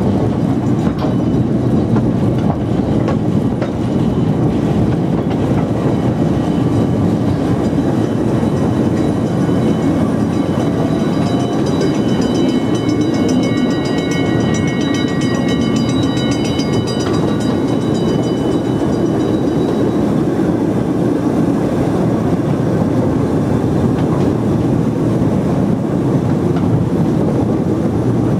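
Park steam train running, heard from an open passenger carriage: a steady rumble and clatter of the wheels on the rails. A high ringing tone joins for several seconds in the middle.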